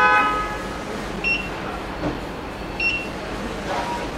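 A brief loud horn-like tone at the very start, then two short high electronic beeps about a second and a half apart from the vacuum OCA laminating machine's controls.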